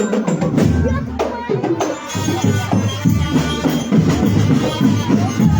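Marching drum band playing, drums beating a rhythm that grows denser about two seconds in.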